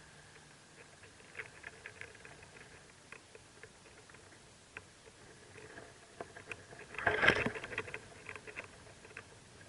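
Soft scattered scratching and tapping from movement in a mockingbird nest, with a louder flurry of scratches about seven seconds in.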